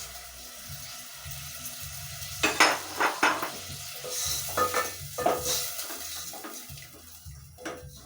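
Beef and broth sizzling in a cooking pot, with a spoon scraping and knocking against the pot as it is stirred. The knocks start about two and a half seconds in and come irregularly.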